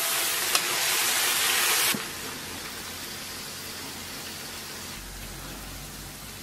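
Stir-fry of wild mushrooms, pork and green and red peppers sizzling in an oiled wok while a metal spatula tosses it, with a couple of spatula clicks. About two seconds in the sizzle cuts off abruptly, leaving a quieter steady hiss.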